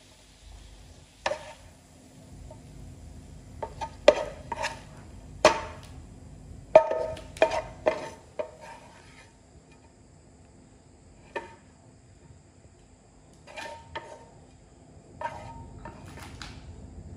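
Spatula knocking and scraping against a frying pan as stir-fried green papaya is served out onto a wooden plate: about ten scattered knocks and scrapes, some with a short ring, the loudest in the first half, with quiet gaps between.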